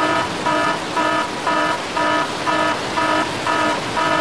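A horn-like electronic beep repeating evenly about twice a second, like a warning alarm, over a steady hiss of rain.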